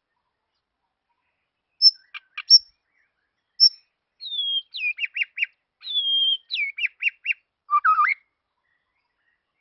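A songbird singing clear whistled phrases: a few short high notes, then twice a falling whistle followed by a quick run of short notes, and a lower warbled note near the end.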